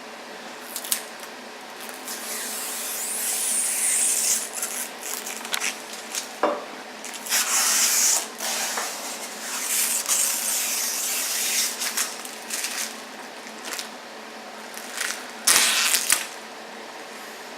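Packaging being handled: irregular rustling and crinkling in stretches of a second or two, with a few sharp knocks, the loudest near the end.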